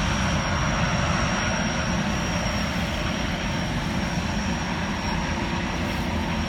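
Gas turbines of a Jetfoil hydrofoil ferry running steadily: an even rushing noise with a thin, high, steady whine over a low rumble.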